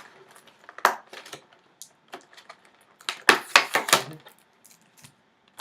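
A collectible statue's cardboard box and packaging being handled and opened: sharp clicks and rustles about a second in, then a denser run of clicks and scrapes around three to four seconds in.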